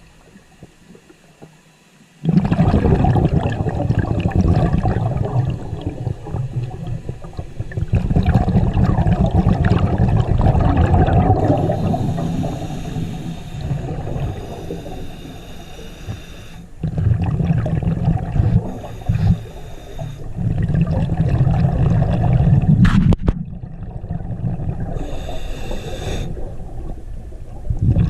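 Scuba diver breathing underwater through a regulator: bursts of exhaled bubbles gurgling, alternating with the higher hiss of inhalations. It starts about two seconds in, after a quiet moment.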